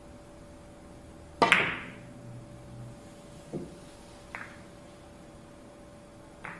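Carom billiards shot. A loud, sharp double click as the cue tip strikes the cue ball and the cue ball hits the first red ball almost at once, then a dull knock of a ball against the cushion about two seconds later, and two lighter ball-on-ball clicks as the balls come together.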